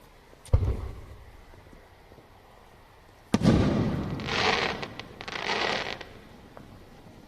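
Aerial fireworks: a boom about half a second in, then a louder sharp burst about three seconds later that dies away, followed by two spells of hissing crackle from the shell's effects.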